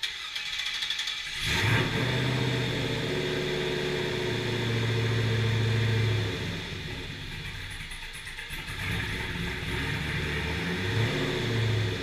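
Cammed GM LQ9 6.0-litre V8 with a single 3-inch DynoMax Race Bullet exhaust, turning over briefly and catching about a second and a half in. It runs louder for a few seconds, settles lower about six seconds in, and is revved briefly near the end.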